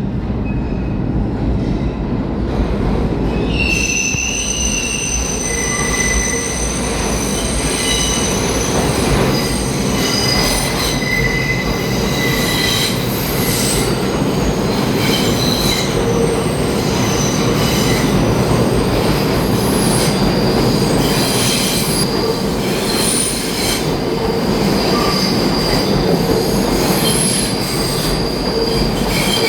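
R142 subway train's steel wheels squealing on the rails over a loud, steady rumble of the train running through the station. Several high, shifting squeal tones come in about three and a half seconds in and carry on throughout.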